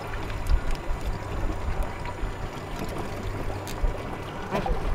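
Wind rumbling in uneven gusts on the microphone over the wash of choppy water, with a couple of sharp knocks near the end as a crab trap is handled.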